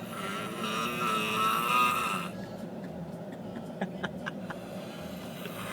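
A man snoring: one loud snore lasting about two seconds near the start, followed by a few faint clicks.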